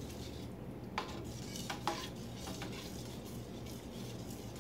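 A utensil stirring a thick, cheesy chicken-and-rice mixture in a stainless steel skillet, clinking and scraping against the pan a few times.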